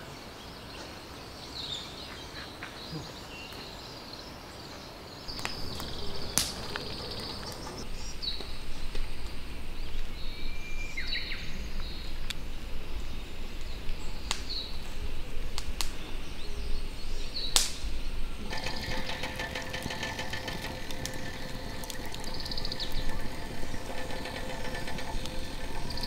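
Wild birds chirping over a quiet outdoor background. About five seconds in, a low rumble with irregular crackling comes up and carries on, and past the middle a steady buzzing hum joins it.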